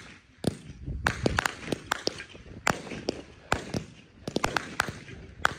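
Fireworks going off: an irregular string of sharp bangs and crackling pops, several a second at times, from aerial shells bursting.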